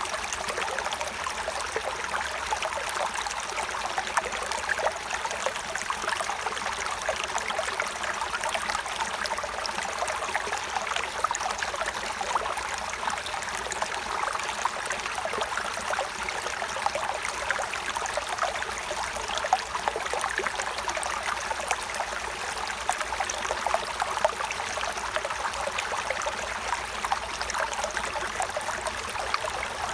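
Stream of running water flowing steadily, with many small splashes throughout.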